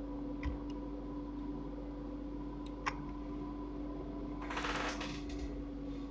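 Computer mouse scroll wheel spun quickly, a rapid run of ratcheting ticks lasting under a second past the middle, with a few single clicks earlier, over a steady hum.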